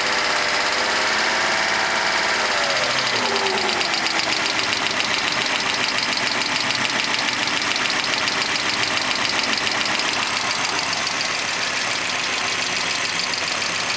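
1998 Volvo V70's five-cylinder engine, warm, its speed dropping about three seconds in and then settling to a steady idle with a fast, even ticking from a hydraulic lifter. The tick comes only when the engine is warm, with good oil pressure, which the owner finds odd.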